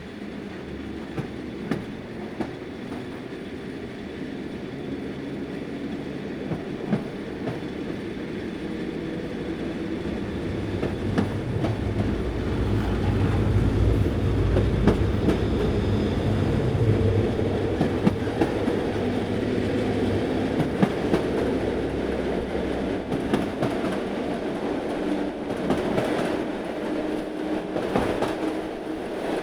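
Train running on the rails, a steady rumble with repeated wheel clicks over the rail joints. It builds to its loudest about halfway through and eases off a little toward the end.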